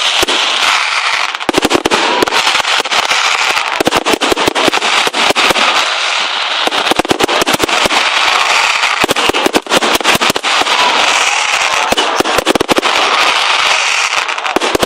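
Fireworks exploding in a dense, continuous barrage of rapid cracks and crackles over a steady hiss, with no break.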